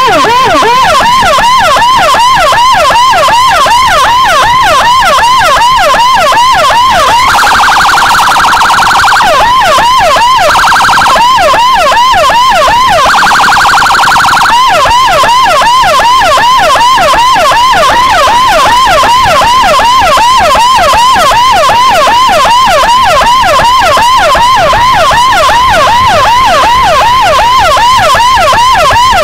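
Motorcycle-mounted electronic siren (CJB 200E) sounding a fast yelp, about four rising-and-falling sweeps a second. It is cut into three times, about seven, ten and thirteen seconds in, by short blasts of a steady blaring horn tone. The siren is clearing traffic for an ambulance carrying an emergency patient.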